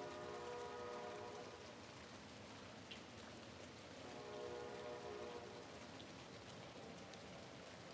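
Steady rain on a window, with a distant train horn sounding a sustained chord over it. The horn fades about a second in and returns more weakly midway.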